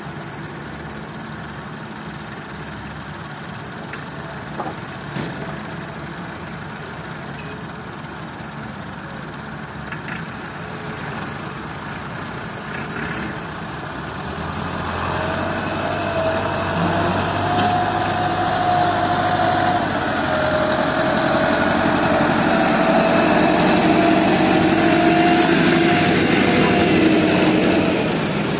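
Tractor engine running steadily, then growing louder from about halfway through, with a whine that wavers in pitch laid over it.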